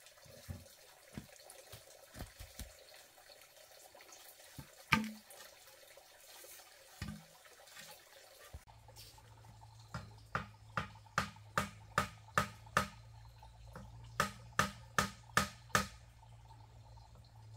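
Bamboo poles knocking a few times as they are handled over a steady faint hiss. About halfway through, this gives way to a run of sharp, regular tool strikes on bamboo, about two or three a second.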